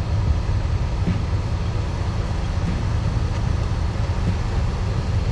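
Steady low rumble of a 2006 Toyota Sienna minivan idling just after a cold start, heard from inside the cabin at the dash.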